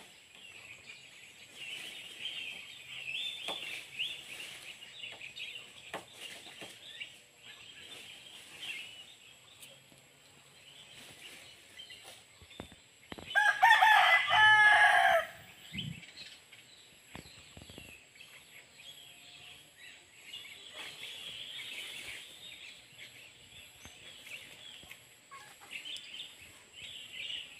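A rooster crows once, loud and about two seconds long, about halfway through, over steady background chirping of birds.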